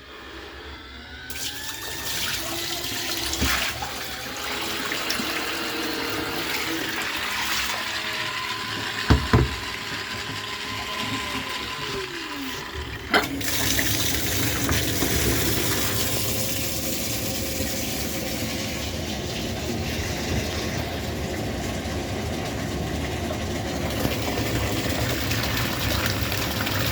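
Water churning and splashing in a small portable washing machine as it runs. There are two short knocks, about nine and thirteen seconds in.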